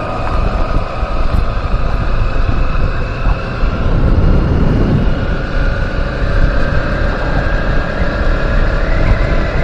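Kawasaki Z250 motorcycle engine running on the move at about 40 km/h under heavy wind rumble on the microphone, its pitch climbing a little in the second half as the bike speeds up. The owner believes this engine needs its valve clearance adjusted.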